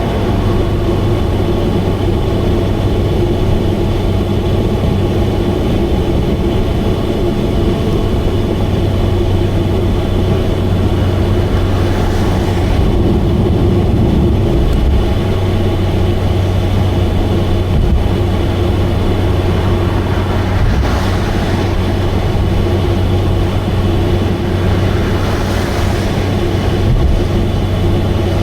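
Subaru Vivio's 660 cc four-cylinder engine droning steadily at highway cruise, made loud by an exhaust leak. Three brief whooshes pass over the drone.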